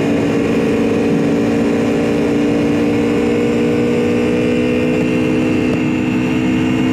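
Aprilia Tuono V4 Factory's V4 engine running at a steady cruising speed from the rider's seat, its note held nearly constant under a rush of wind noise.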